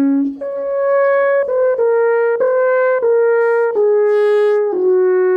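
Alphorn playing a slow melody of separate held notes that steps mostly downward, ending on a long held low note near the end.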